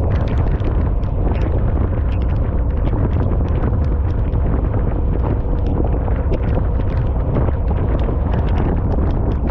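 Wind buffeting a rider's microphone on a moving Harley-Davidson motorcycle, a steady heavy low rumble, with many scattered sharp ticks over it.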